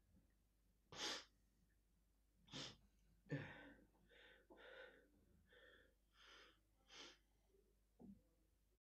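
A man's breaths and gasps, with a sharp intake about a second in, then a run of short breathy bursts about two a second.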